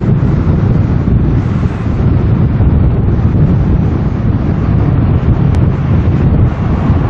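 Strong gusty wind buffeting the microphone: a loud, steady, low-pitched blustering noise.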